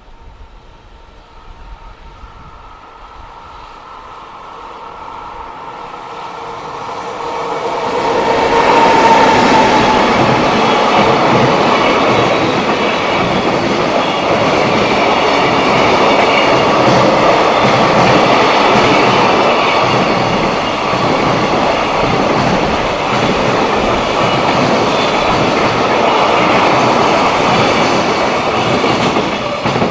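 Electric-hauled freight train approaching and passing close by: a rumble rises over about eight seconds, then a long stretch of loud, steady wheel clatter on the rails as the wagons go by, cutting off abruptly near the end.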